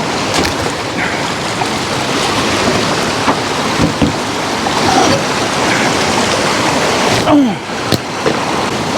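Steady rush of river water, with a few light knocks.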